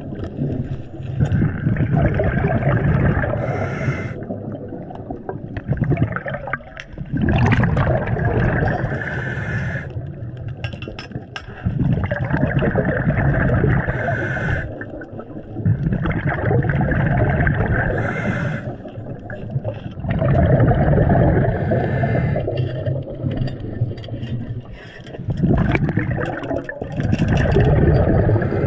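Scuba diver breathing underwater through a regulator: a short hiss on each inhale, then a long gurgling rush of exhaled bubbles, repeating about every four to five seconds.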